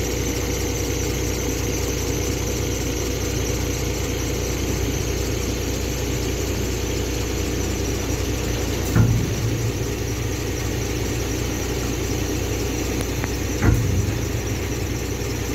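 Hooklift truck's engine and hydraulics running steadily with a high whine while a roll-on/off skip is moved off the trailer by the hook arm. Two heavy metal clunks, about nine seconds in and again about four seconds later.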